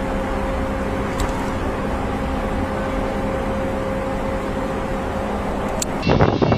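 Antonov An-225 Mriya's six turbofan jet engines at full power during takeoff and climb: a steady roar with a faint steady whine. Near the end the sound cuts suddenly to a louder, gusting rumble with wind on the microphone.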